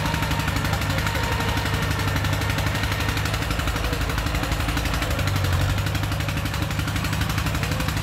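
Small crawler bulldozer's diesel engine running steadily with a fast, even chugging, swelling briefly about five and a half seconds in as the blade pushes soil.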